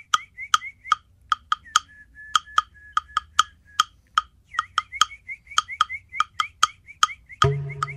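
Hollow, wood-block-like clicks at an uneven pace over a fast run of faint short chirps, with a steady thin whistle-like tone for a couple of seconds in the middle; a percussive background soundtrack.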